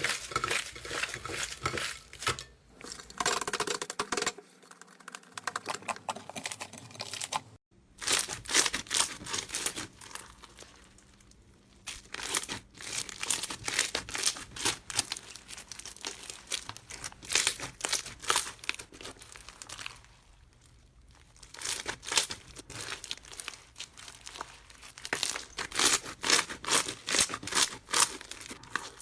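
Slime being squeezed and pressed by hand, giving dense crackling and popping clicks, with a few quieter pauses.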